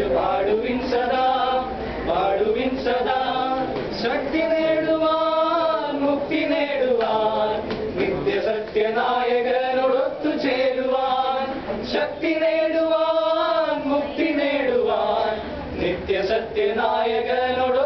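A small group of young men singing together unaccompanied, in phrases of long held notes that slide between pitches.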